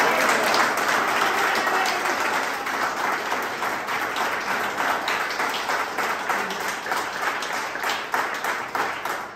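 A small crowd applauding by hand, the clapping thinning out and getting quieter toward the end, with single claps standing out.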